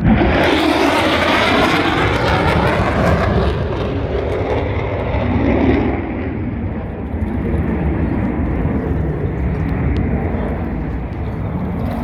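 Military jet flying past: a loud rushing jet roar with a swirling, sweeping shift in its tone during the first few seconds, then fading slowly as it moves away.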